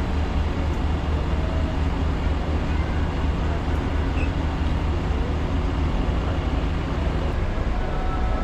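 A roll-on/roll-off passenger ferry's diesel engines running as it manoeuvres in to berth, a deep, steady hum.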